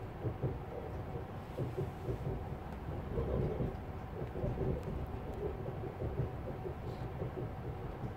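Steady low rumble of running noise inside the passenger car of an ES2G Lastochka electric train in motion, with a few faint clicks over it.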